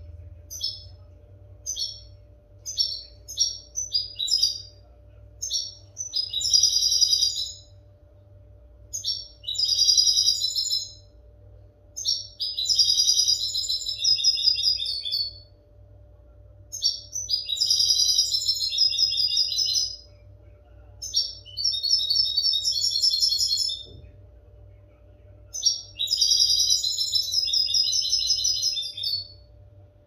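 European goldfinch singing: bursts of rapid, high twittering song lasting one to three seconds, about every three to four seconds, with short single call notes in the first few seconds. It is offered as clean, fault-free song for tutoring young goldfinches. A faint steady hum lies underneath.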